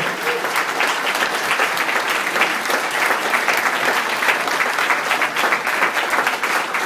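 Audience applauding steadily, a dense continuous clatter of many hands clapping.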